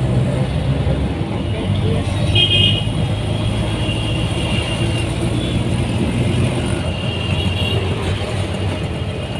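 Auto-rickshaw engine running steadily as it rides through city traffic, heard from inside the open cabin, with vehicle horns honking a few times, the loudest about two seconds in.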